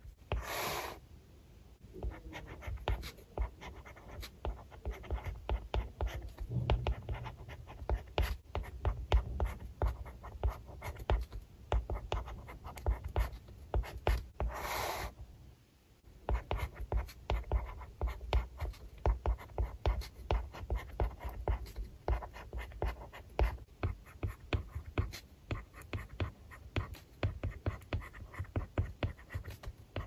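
A stylus nib writing on a tablet's glass screen: quick, irregular taps and short scratchy strokes of handwritten characters, with two longer sliding strokes of about half a second, one near the start and one about halfway.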